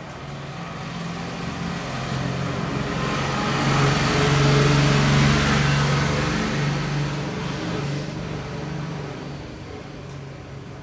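A motor vehicle going past, its engine and road noise swelling to their loudest about halfway through and then fading away.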